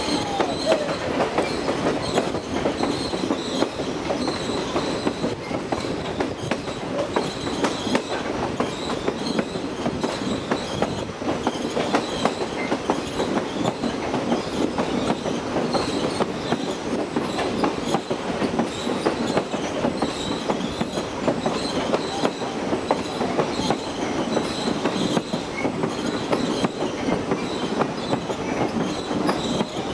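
Railroad train rolling along the track: a steady rumble of wheels on rail with constant rapid clicking and, at times, a faint high squeal from the wheels.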